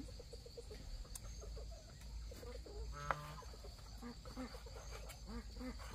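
A chorus of many short, repeated animal calls over a steady high insect drone, with one louder call about three seconds in.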